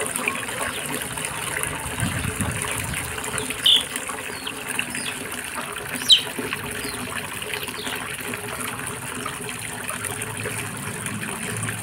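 Water from a garden hose spraying into a plastic tub, a steady splashing rush. Two brief high chirps stand out, about four and six seconds in.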